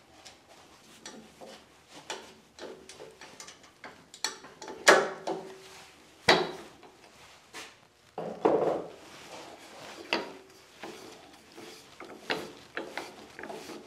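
Clicks and knocks of metal lathe fittings and the wooden workpiece being handled as the faceplate assembly comes off a wood lathe, with four louder sharp knocks about five, six, eight and ten seconds in.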